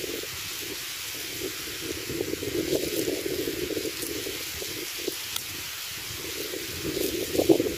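Water lapping and sloshing around a person wading chest-deep, over a steady hiss, with a louder slosh near the end.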